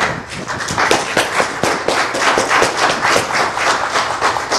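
Congregation applauding, many hands clapping together.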